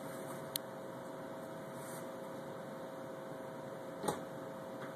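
Steady low hum of lab equipment, with a faint click about half a second in and a sharper click about four seconds in, from handling a P200 pipette against a plastic midi prep column.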